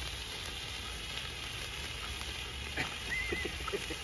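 Winda Fireworks Freedom Wings hand fountain burning with a steady hiss. About three seconds in, a brief high-pitched tone sounds over it.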